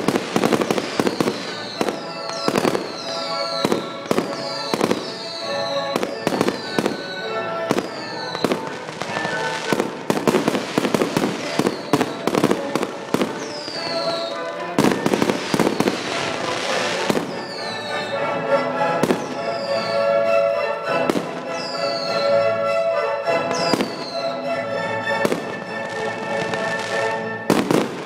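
Fireworks bursting in quick, irregular succession over music from loudspeakers, for a synchronised fireworks show. A high falling tone recurs roughly once a second through much of it.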